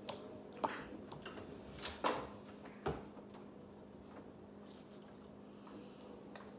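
Items being handled inside an open refrigerator: a few sharp knocks and clicks of containers and shelves being touched in the first three seconds, then quieter rummaging, over a steady low hum.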